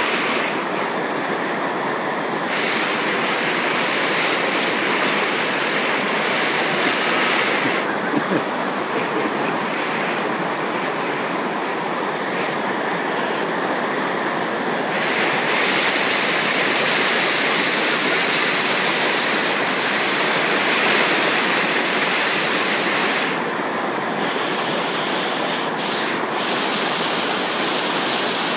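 River rapids: whitewater rushing steadily and loudly, with the hiss growing brighter and duller now and then.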